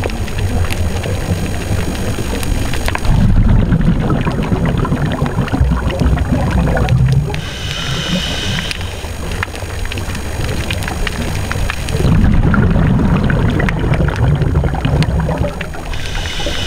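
Scuba diver breathing through a regulator, heard underwater: two long spells of exhaled bubbles gurgling, each a few seconds, with a short hiss of inhalation between them and another near the end, in a slow, regular cycle.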